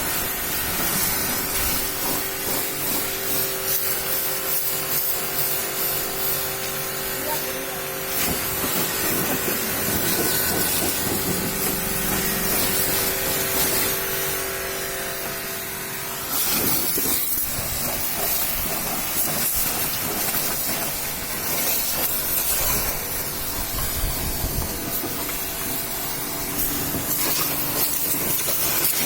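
Pressure-washer jet spraying water in a steady hiss, with a steady tone underneath; the spray grows louder about halfway through.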